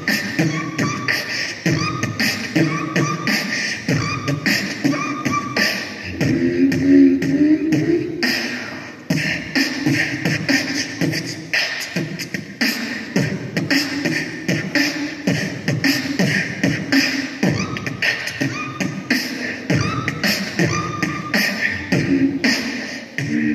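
A boy beatboxing into a microphone, amplified over loudspeakers: a continuous beat of rhythmic vocal drum hits, with short pitched notes laid over it near the start and again later.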